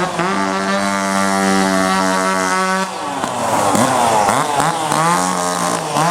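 Two-stroke carving chainsaws running: one held at a steady high rev for about three seconds, then several saws revving up and down rapidly and overlapping as they cut.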